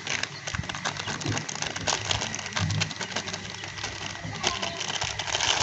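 Plastic wafer wrapper crinkling as it is squeezed and shaken to empty crushed wafer crumbs onto a plate: a dense, irregular run of crackles that grows louder near the end.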